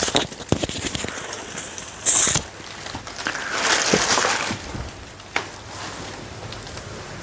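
Plastic bags and cloth prayer mats rustling and crinkling as they are handled, with scattered small clicks and a brief louder rustle about two seconds in.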